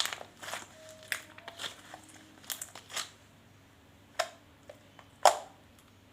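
Homemade glue slime being stretched and squished by hand, giving a series of short sticky pops and crackles, the loudest about five seconds in.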